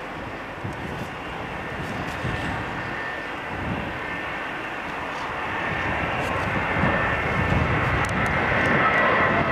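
Airbus A320 jet airliner on final approach, its engines growing steadily louder as it nears. A high engine whine comes through near the end.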